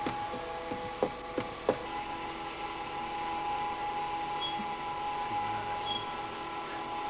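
A motor running with a steady whine. Three sharp knocks sound between about one and two seconds in.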